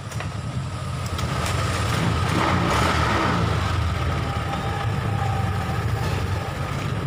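Honda Vario scooter's engine and CVT running with the rear wheel off the ground; the throttle is opened about two seconds in, the rear wheel spins up and the sound swells, then eases back to a steady run.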